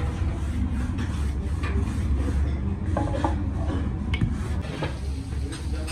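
Rolling pin rubbing and rolling over thin dough on a floured stone counter, with a few light knocks, over a steady low hum.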